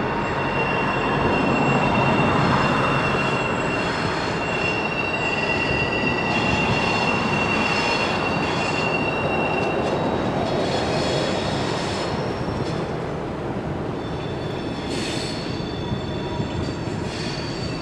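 Freight train rolling past with its steel wheels squealing: a high, steady squeal holds through the first half, over the rumble of the cars. Shorter, higher squeals come and go later on.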